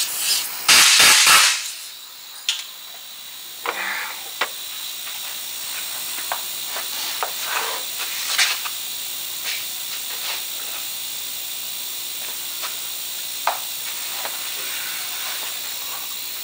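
Compressed-air blow gun on a shop air hose giving a few short loud blasts of air at a freshly welded shock mount in the first second and a half, then scattered faint knocks over a low steady hiss.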